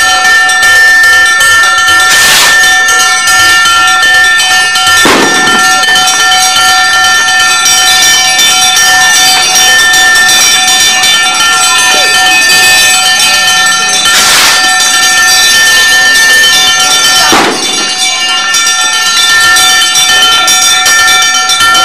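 Bells ringing continuously, several tones held steady, with a few short louder rushes of noise.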